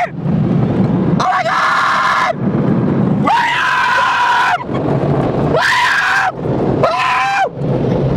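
Four long, high screams inside a car going through an automatic car wash, over the car wash's steady rumble and hiss.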